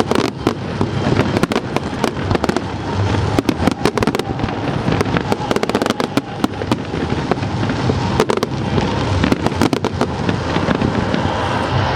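Fireworks display: a dense, continuous volley of bangs and crackling cracks over a steady rumble of shell bursts.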